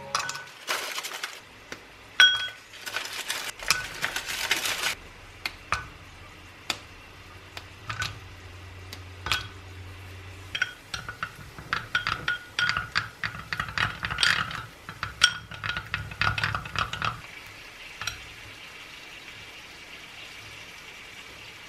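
Dishes and utensils clinking and knocking, many sharp taps, some with a short ring, with a thick run of clinks in the middle, then a steady soft hiss for the last few seconds.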